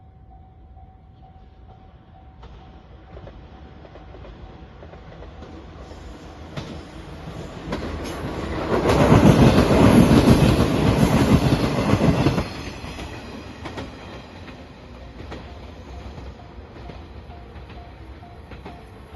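A train passing over a level crossing: its rumble and wheel noise build up, are loud for about four seconds in the middle, then cut down sharply and fade. A level-crossing warning bell's pulsing tone is heard faintly at the start and again near the end.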